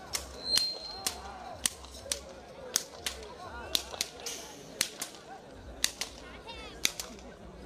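Repeated sharp cracks of handlers lashing a pair of bullocks as they haul a heavy stone block, about a dozen cracks at irregular intervals of half a second to a second.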